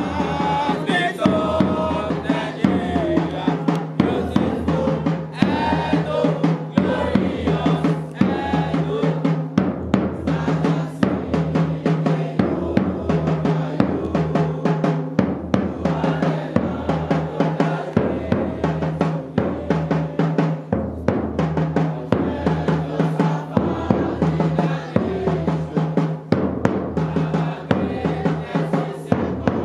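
Drums, bass drum and snare, playing a steady, driving beat, with voices singing over it at times.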